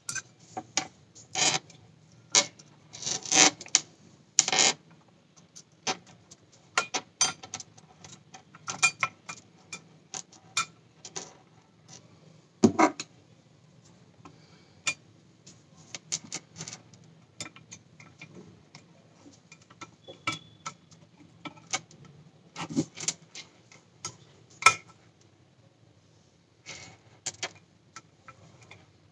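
Irregular small clicks and taps of plastic and metal as hands and a small screwdriver work the pellicle mirror frame inside a Sony Alpha 58's lens mount, with one louder knock about midway, over a faint low hum.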